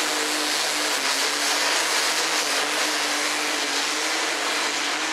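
A competition pulling tractor's engine running flat out, loud and steady, as it hauls the weight-transfer sled down the track.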